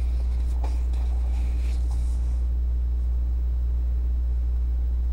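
A steady low hum, the loudest thing throughout, with a sheet of paper rustling as it is handled during the first two seconds.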